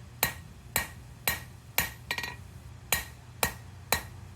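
Hand hammer striking hot quarter-inch round steel bar on an anvil at a steady pace of about two blows a second, each blow ringing briefly.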